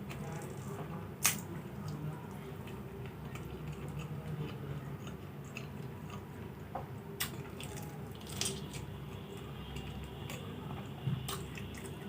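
Close-miked chewing and wet mouth sounds of someone eating puri with aloo dum, broken by a few short sharp clicks.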